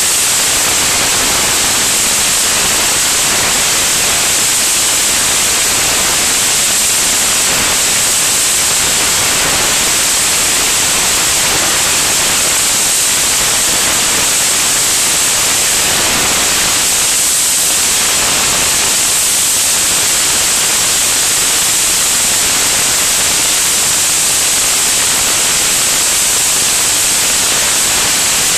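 Steady, loud rushing hiss of airflow over a camera mounted outside a high-wing light aircraft in flight. It is an even hiss, brightest at the top end, with no engine note coming through.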